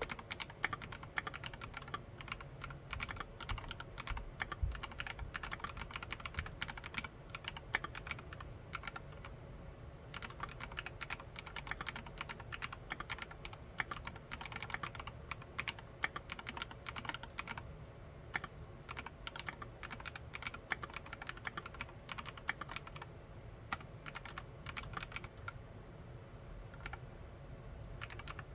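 Mechanical keyboard being typed on continuously, a fast, irregular run of key clacks broken by a few brief pauses.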